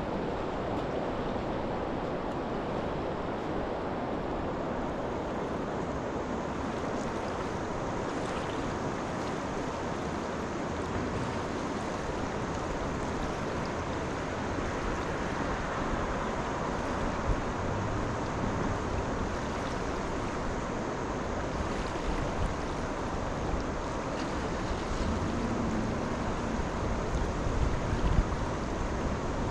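Steady rush of river water mixed with wind on the microphone, with a couple of brief knocks.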